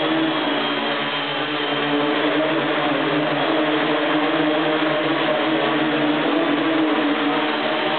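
Custom-built tricopter's three brushless motors and propellers whirring steadily in a hover, several tones that waver slightly in pitch.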